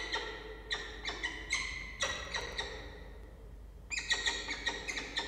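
Peregrine falcons calling: a fast run of short, harsh, repeated calls, a pause of about a second, then another run starting about four seconds in.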